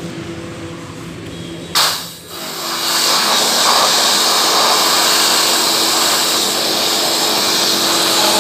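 Pressure washer spraying the removed EGR valve and pipe clean of carbon. A steady motor hum runs at first. About two seconds in, the jet opens with a short loud burst, then settles into a loud steady hiss of water striking the metal parts, with the hum still underneath.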